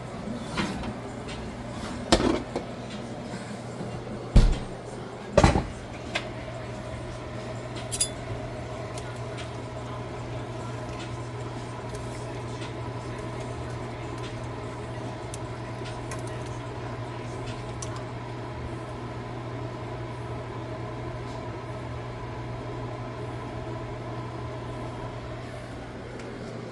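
Pots, pans and utensils clanking a few times in the first several seconds, over a steady kitchen hum that carries on without a break.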